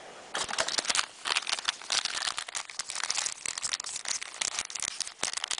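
Crinkling and tearing of a foil trading-card pack wrapper being handled and opened, a dense run of irregular crackles.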